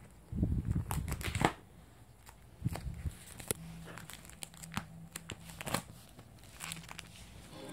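Plastic binder pages crinkling and rustling as a hand turns them, with a loud burst of rustling about half a second in, then scattered short crinkles and clicks.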